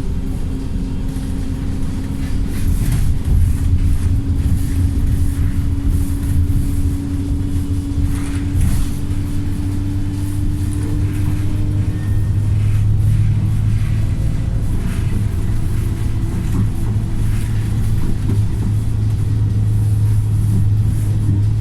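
Wright StreetLite single-deck bus engine working hard in its remapped tune, its note slowly rising for about twelve seconds as the bus gathers speed, then settling into a louder, deeper drone.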